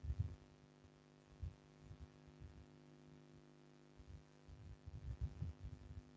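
Faint, steady electrical hum, with a few soft, low thumps scattered through it: one at the start and a cluster near the end.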